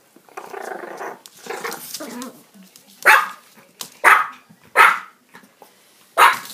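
Chihuahua growling in play, then four sharp barks about a second apart.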